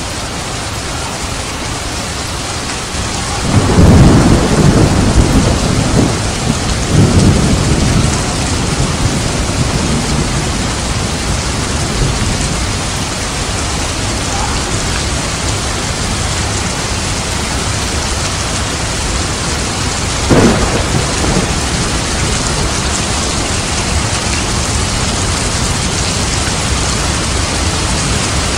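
Heavy rain falling steadily, with thunder rumbling twice between about 3 and 8 seconds in and a short, sharper thunderclap about 20 seconds in.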